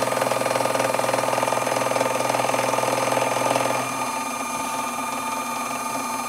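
Sherline benchtop vertical mill's end mill cutting an angled face on a steel-looking strap clamp, a rough grinding cut over the steady whine of the motor and spindle. About four seconds in the cutting noise drops away and the level falls, leaving the spindle running on its own.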